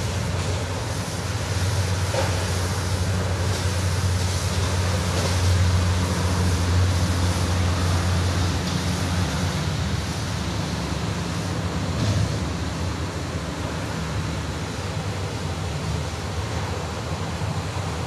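Steady rushing wind noise on the microphone, a deep rumble with a hiss above it that swells and eases every few seconds.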